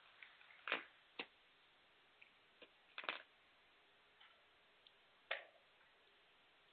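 Near-quiet snooker arena with a few sharp, separate clicks and knocks, a second or two apart, from snooker balls and cue being handled at the table.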